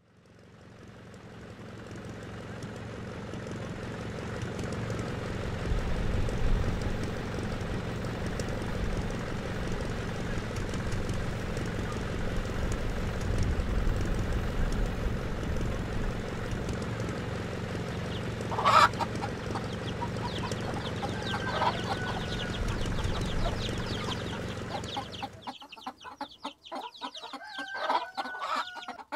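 Chickens clucking, with one sharp, louder call about two-thirds of the way through. A steady low noise fills most of the stretch, fading in at the start and stopping shortly before the end, after which the clucking is heard clearly.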